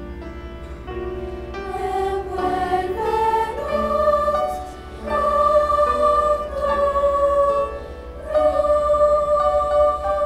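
Mixed choir singing a sacred song with piano accompaniment, held notes in phrases, dipping briefly about five and eight seconds in.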